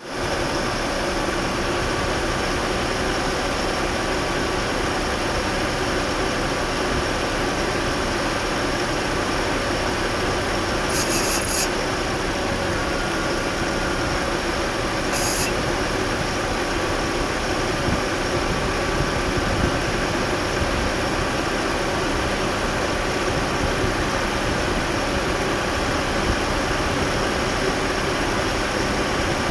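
Jaguar car's engine idling steadily, with a noise the owner puts down to the clutch. Two brief high-pitched sounds come near the middle, about four seconds apart.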